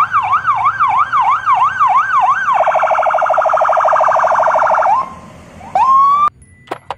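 Electronic police-car siren, sweeping up and down a little over twice a second, then switching about two and a half seconds in to a much faster warble. Near the end a short rising whoop cuts off suddenly.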